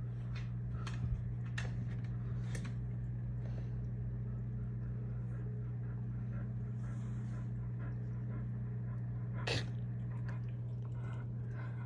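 A dog panting in short irregular breaths, with one louder sharp burst about nine and a half seconds in, over a steady low hum.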